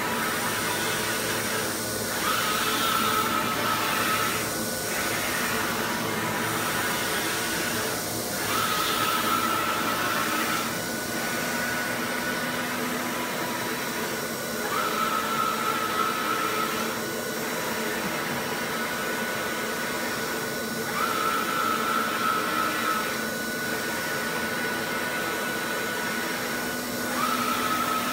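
Large-format flatbed printer printing, a steady whir of its fans running throughout as the print-head carriage sweeps back and forth. A high steady whine lasting about two seconds comes back roughly every six seconds with each pass cycle.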